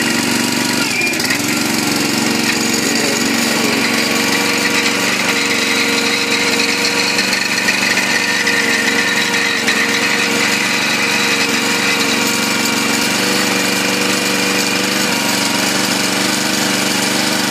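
A log splitter's small Honda gasoline engine running steadily at constant speed, driving the hydraulic pump.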